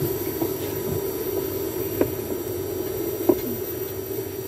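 Steady hum of a parked airliner's cabin during boarding, with a constant low tone, broken by two short knocks about two seconds and three seconds in.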